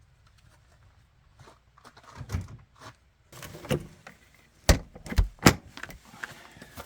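A series of sharp clunks and knocks, several close together with the loudest about two-thirds of the way through, as camp gear is handled and stowed during pack-up.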